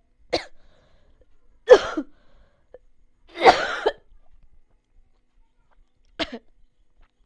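A person coughing four times, separate short coughs a second or more apart; the second is the loudest and the third the longest.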